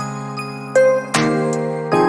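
Background music: gentle, bell-like tinkling notes over sustained chords, with new notes struck about once a second.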